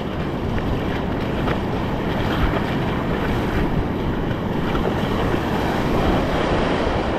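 Surf washing over a shallow reef, with wind buffeting the microphone: a steady, dense rush of water noise.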